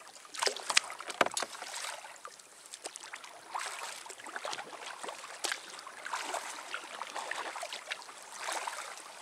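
Double-bladed kayak paddle dipping and pulling through lake water, the blades splashing and dripping with each stroke every second or so. A few sharp clicks come about a second in.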